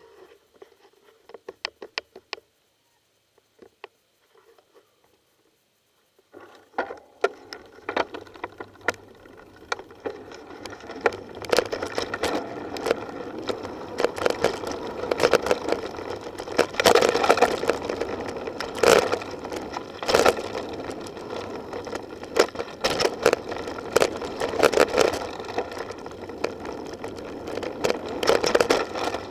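Mountain bike riding over dirt singletrack: nearly quiet at first with a few sharp clicks, then from about six seconds in a continuous rush of tyres on dirt and wind on the microphone, broken by frequent knocks and rattles of the bike over bumps in the trail.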